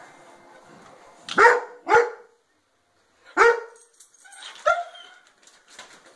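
Young Alaskan Malamute barking four times, wary barks at a skeleton dog toy: two in quick succession about a second in, then two more spaced about a second apart, the last one softer.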